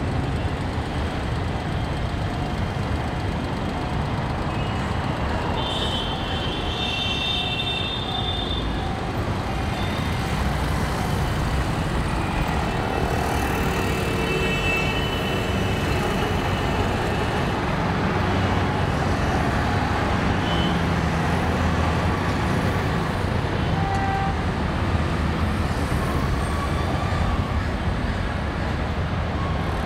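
Steady roar of heavy road traffic, engines and tyres, with vehicle horns sounding briefly about six seconds in and again around thirteen to fifteen seconds in.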